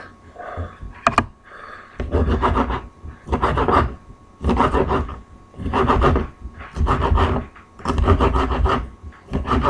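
Kitchen knife cutting cooked bacon on a cutting board: a regular series of scraping cuts, about one a second, starting about two seconds in.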